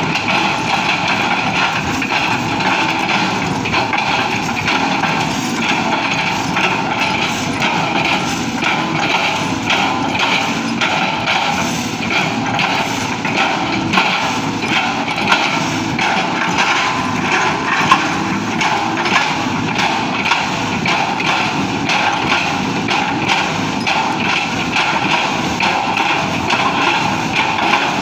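Cat 320GC excavator running steadily, its diesel engine and working gear making a continuous loud mechanical clatter with a few sharper knocks.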